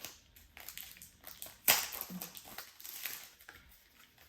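Paper and card packaging rustling and crinkling as it is handled and opened by hand, with one sharp crackle a little under two seconds in.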